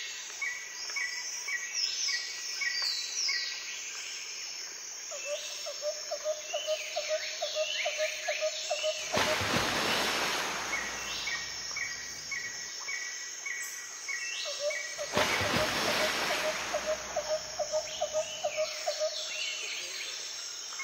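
Nature-sound background track of birds chirping and insects trilling: a fast trill comes twice and two swells of rushing noise rise about six seconds apart, the same pattern of calls repeating.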